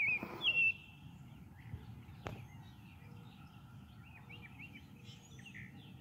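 A songbird gives a few loud, quick whistled calls in the first second, then fainter chirps follow later, with one sharp click a little after two seconds.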